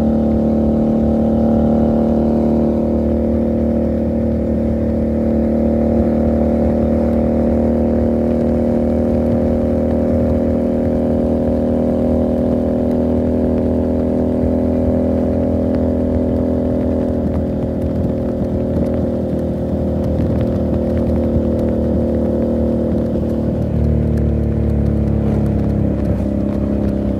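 Motorcycle engine and exhaust heard from the rider's seat while cruising at a steady pace. The engine note sags gently in the second half, shifts about three seconds before the end, and picks up again near the end.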